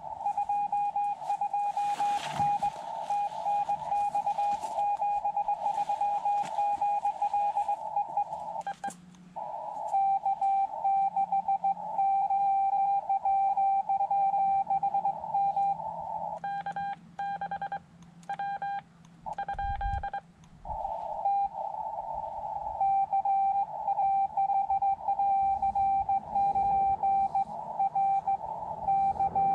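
Morse code (CW) beeping from a Xiegu X5105 HF transceiver: one steady-pitched tone keyed on and off in rapid dots and dashes over a narrow band of receiver hiss. About two-thirds of the way through comes a short run of separate, sharper beeps with gaps between them.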